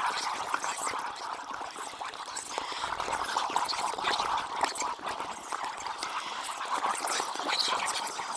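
Mountain river rushing and splashing over boulders in shallow rapids: a steady, busy babble of water.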